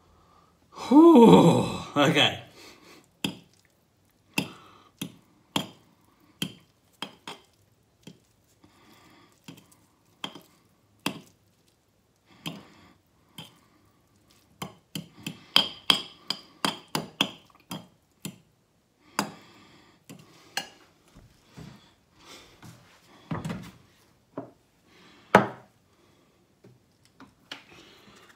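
Kitchen utensils and dishes knocking and clinking on a counter, a string of separate sharp clicks and knocks at irregular spacing, coming fastest about halfway through.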